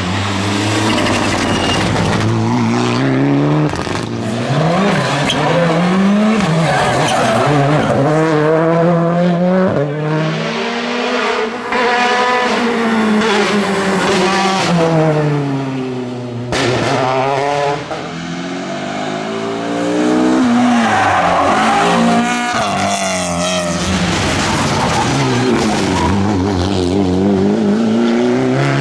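Rally cars at full attack on a tarmac stage, several passing one after another: engines revving hard and rising and falling in pitch through gear changes, with tyres squealing at times.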